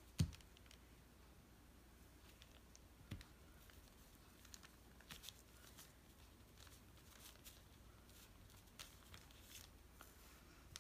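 Near silence with faint taps and paper rustles as small puzzle pieces are glued and pressed onto a paper tag. One sharp knock comes just after the start, and a fainter one about three seconds in.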